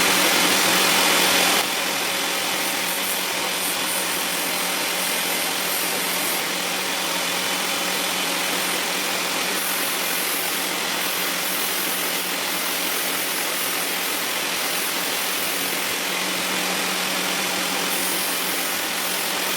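Angle grinder fitted with a homemade disc-sander attachment, running steadily with a constant hum under an even rush of noise. It drops suddenly in level about one and a half seconds in.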